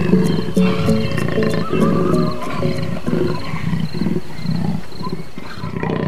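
Electronic music with a steady beat and repeated synth notes, with a big cat's growl layered over it.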